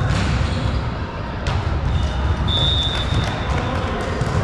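Referee's whistle blown once, a short steady high note about two and a half seconds in, over the rumble of a large sports hall, with a single thump of the volleyball about a second and a half in.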